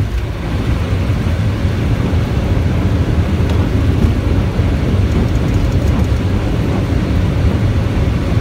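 Airliner on its landing rollout, heard from the cockpit: a steady low rumble of the wheels on the runway and the engines.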